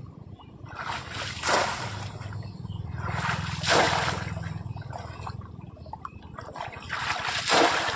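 Water splashing in three surges, about a second in, around the middle and near the end.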